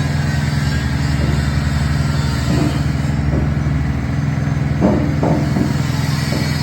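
Honda engine on a coconut-milk press machine running steadily, with a few short knocks from the press about five seconds in.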